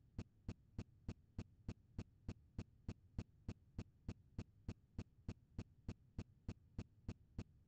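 Faint, evenly spaced clicks, about three a second, over a low steady hum.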